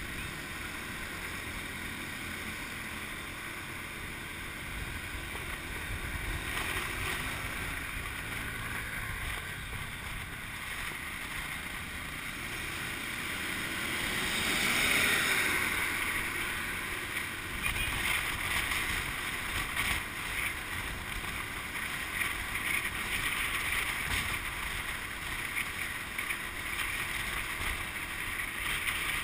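Wind rushing over the microphone on a moving motorbike, with the engine and the surrounding street traffic running under it. The sound swells to its loudest about halfway through, as a city bus passes close alongside.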